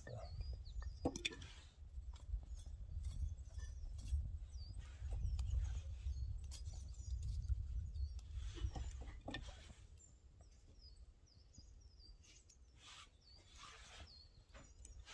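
Wind rumbling on the microphone, easing off about ten seconds in, with small birds chirping high and a few soft knocks and crackles.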